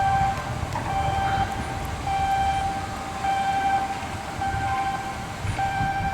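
Electronic warning beeper sounding a steady, pitched beep about once a second, over a low machinery rumble, as from a crane or other equipment warning alarm at a shipyard.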